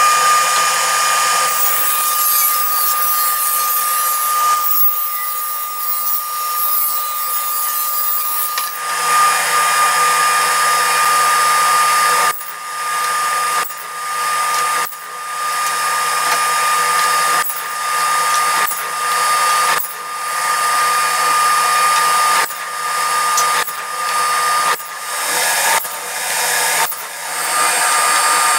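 Table saw running with a steady high whine as wooden boards are fed through its circular blade. From about halfway through, the sound breaks off sharply and picks up again about every second.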